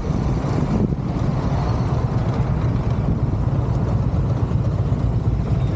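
Motor scooter engines running steadily, a low even drone with road and air noise over it.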